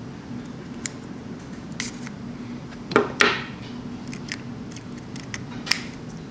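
Small sharp plastic clicks and taps from a GoPro Hero 4 Silver being handled as its battery and SD card are taken out, about half a dozen in all, the loudest pair a little after three seconds in.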